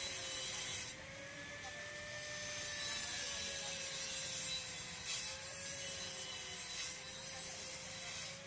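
Electric angle grinder running on steel with a steady, slightly wavering whine and a rasping hiss that eases about a second in and returns strongly around five seconds in.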